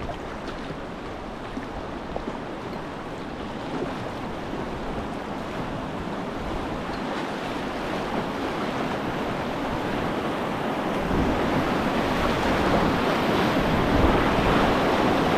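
River rapid's white water rushing around a canoe, growing steadily louder as the canoe runs down into the rapid's waves.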